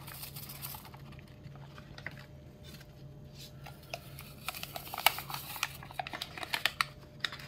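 Instant pudding mix poured from a paper pouch into a bowl of milk: faint rustling of the paper pouch and a soft, irregular patter of powder, the small ticks growing busier about halfway through.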